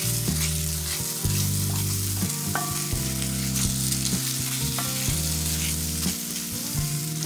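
Chopped onion, cubanelle pepper and garlic sizzling in oil in a frying pan, stirred and scraped around with a wooden spoon, with short scrapes and clicks over the steady sizzle.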